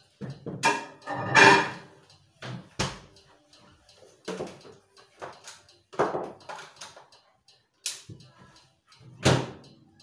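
Kitchen cupboard door being opened and shut, with items handled inside: a string of separate knocks and clatters, loudest about a second and a half in and again near the end.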